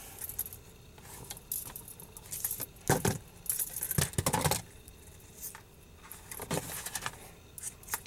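Jewelry pliers gripping and pulling a thin jewelry wire tight, with small irregular metal clicks and ticks of the tool and wire, the loudest about three and four seconds in.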